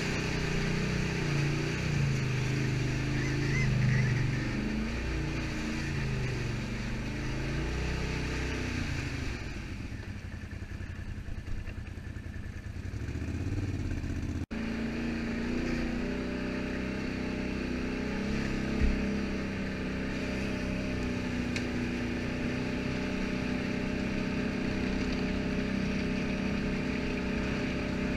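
Can-Am Outlander ATV engine revving up and down as it works through mud, then easing to a lower, quieter running about ten seconds in. The sound breaks off abruptly halfway through, and the engine then runs at a steady pitch while cruising, with a single thump a few seconds later.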